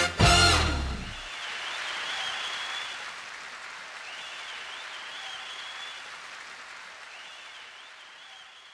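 A music jingle stops about a second in and gives way to an applause sound effect, a steady patter with a faint high warbling chirp three times, which slowly fades out.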